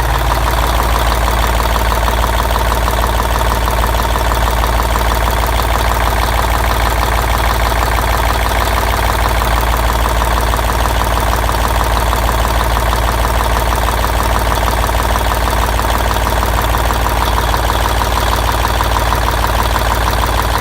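YaMZ-236 V6 diesel engine idling steadily with a knock. Its cause is unclear to the owner, since the injectors have been checked, the pump and heads rebuilt, and the valves, pistons and liners are new.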